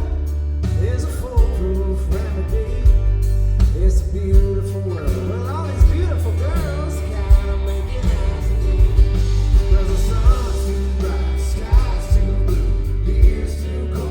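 Live country-rock band playing an instrumental passage: steady bass and drums under a bending, wavering lead melody line.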